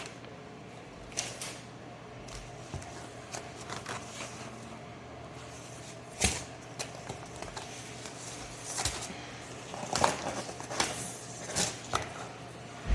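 Objects being handled at close range: irregular clicks, knocks and rustles, the loudest about halfway through and again near the end, over a steady low hum.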